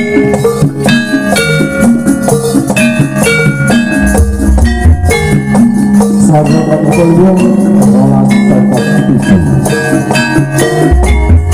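Live jaranan music played on a gamelan-style ensemble: struck metal instruments ringing out a quick, repeating melody over drums and deep low strokes.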